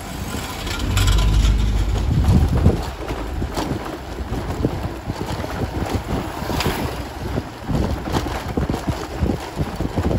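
Wind buffeting the microphone on the back seat of a moving motorbike, over the low running of the bike and jolts of its tyres on cobblestones. The wind rumble swells for a second or two near the start.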